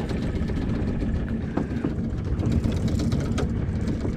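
Small boat's motor running steadily at slow trolling speed, a low rumble with a faint steady hum, and a few light clicks over it.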